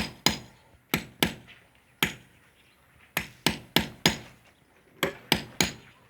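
Hammer blows on a steel screwdriver used as a punch to knock a hole at a marked spot: sharp metallic strikes in quick groups of two to four, with short pauses between groups and a longer pause of about a second in the middle.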